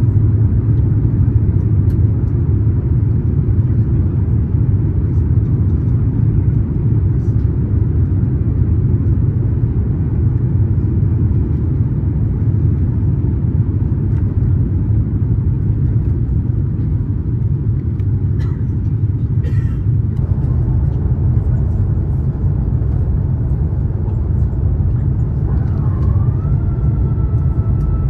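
Airbus A350-900 cabin noise during descent, heard from an economy window seat behind the wing: a steady low rumble of the Rolls-Royce Trent XWB engines and airflow. Near the end a steady tone comes in, dipping briefly and then holding.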